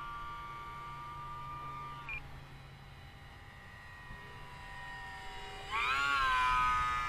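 Electric motor and propeller of a micro RC biplane (E-Flite UMX Pitts S-1S) giving a steady whine in flight, on a 3-cell battery. The pitch drops as the throttle comes back about two seconds in. Near the end it gets suddenly louder and rises in pitch as the plane passes low and close, then eases slightly.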